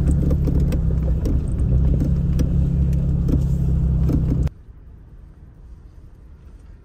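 Vehicle driving on a rough dirt trail, heard from inside the cab: a steady engine drone with many small rattles and knocks. About four and a half seconds in it cuts off abruptly to a much quieter low cab hum.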